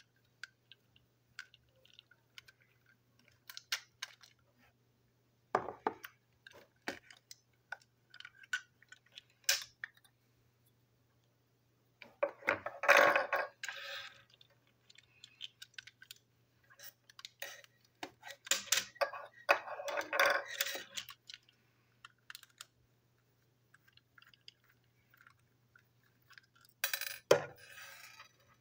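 Small plastic parts of a toy train clicking, tapping and rattling as they are handled and pried apart by hand, with a few longer bursts of rubbing and scraping, one a little before the middle, one after it and one near the end.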